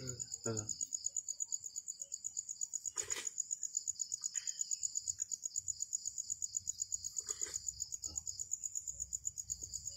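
A cricket chirping steadily in a high, fast, even pulse. A single sharp click comes about three seconds in.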